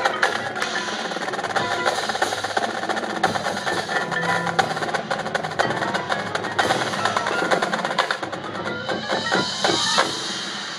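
Marching band playing, with percussion prominent: drumline and front-ensemble mallet instruments in rapid strokes. A rising run of notes comes near the end, then the music drops off.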